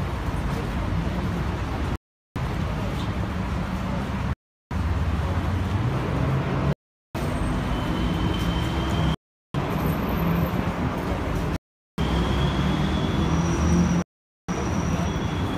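City street ambience: traffic hum and the shuffle and indistinct voices of a large crowd walking along the pavement, cut by brief silent dropouts every two seconds or so.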